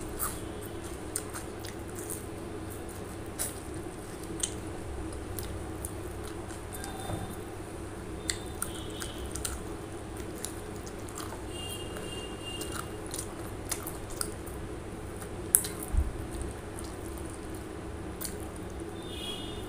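Close-up eating sounds: biting into raw onion rings and chewing chicken leg curry with rice, with many short wet mouth clicks and smacks over a steady low hum. One louder knock comes late on.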